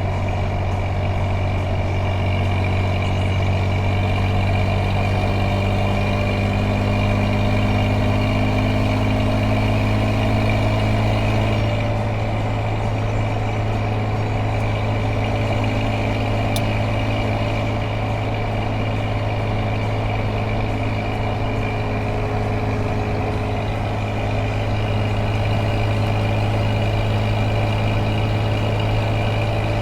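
An engine running steadily, a deep even hum that holds unchanged throughout.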